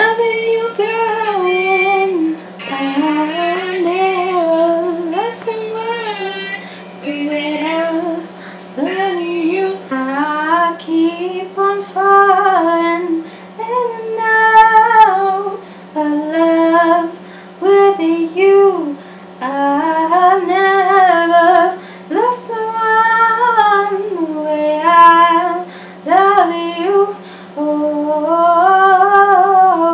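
A woman singing a song in phrases with short breaks for breath between them.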